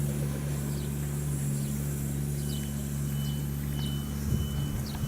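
A steady low mechanical hum with a few fixed low tones. About halfway in, faint short high beeps start, repeating roughly every half second.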